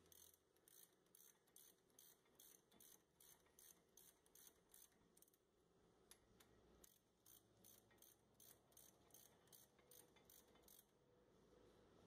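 A hand ratchet and socket turning the front brake caliper bracket bolts, clicking faintly in short, even strokes of about two to three a second. The clicking pauses about five seconds in, then starts again and stops about a second before the end.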